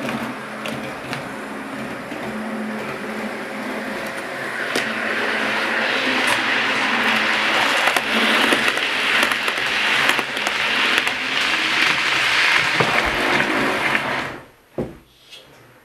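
00 gauge model train running on track: a steady electric motor whir and wheel rumble with scattered clicks, growing louder as the train passes close by. It cuts off suddenly about 14 seconds in, followed by a single short knock.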